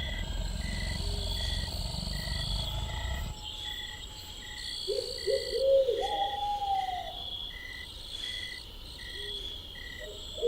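Night forest ambience: insects chirp in an even pulse about twice a second over a steady high insect drone, with a low rumble for the first few seconds. About five seconds in comes a quick run of owl-like hoots and then one longer, arching call.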